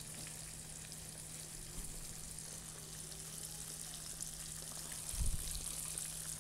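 Breadcrumb-coated fish pieces frying in hot oil in a pan, a steady quiet sizzle, with a soft low thump about five seconds in.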